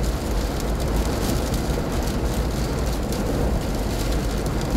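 Hurricane-force wind, sustained around 85 to 90 mph with gusts near 100 mph, blowing steadily with a deep rumble of buffeting.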